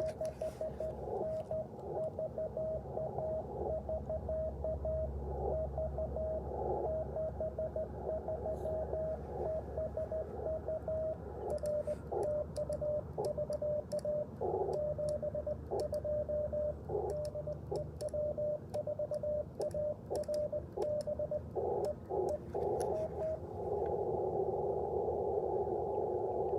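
Morse code from an Icom IC-705 transceiver: a single pitched tone keyed in quick dots and dashes over the receiver's narrow-filtered hiss. The keying stops about three-quarters of the way through, leaving only the steady hiss.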